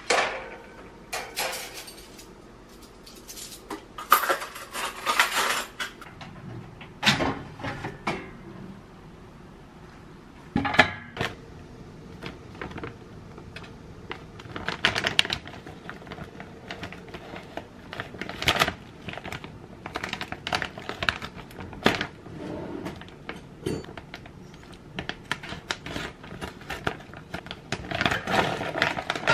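Irregular knocks, clicks and short rustles of objects being handled, at uneven intervals and of varying loudness.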